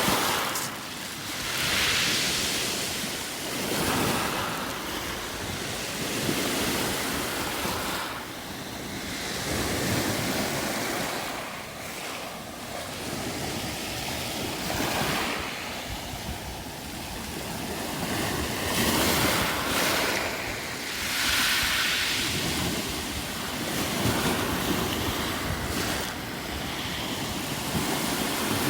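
Waves washing over a beach of round pebbles, the stones rattling in the surf, coming in swells every few seconds, with wind buffeting the microphone.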